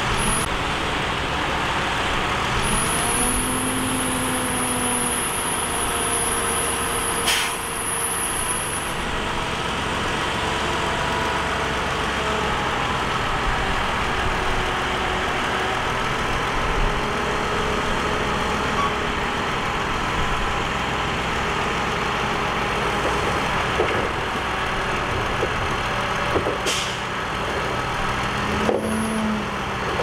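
Heavy diesel engine of earthmoving machinery running steadily, its pitch drifting slightly up and down with the load. A high whine sounds for several seconds near the start, and there are a couple of sharp clicks.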